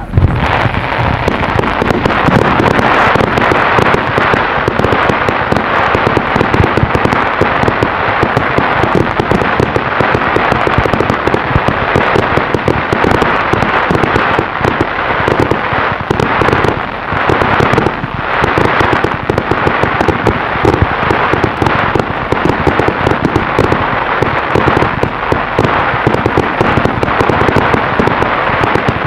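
Fireworks show: a dense, unbroken barrage of crackling and rapid small bangs.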